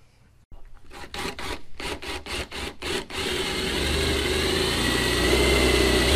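Power drill boring a quarter-inch hole through a carbon fibre trunk lid with a twist bit. A run of short clicks and bursts comes first; from about three seconds in the drill runs steadily under load with a low hum and a steady whine.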